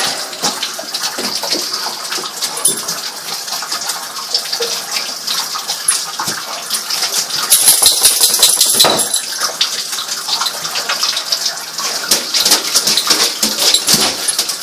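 Water running and splashing in a bathtub as a dog paws and noses at it near the drain, with many small clicks and splashes over a steady hiss. The splashing is louder for a second or two from about seven and a half seconds in.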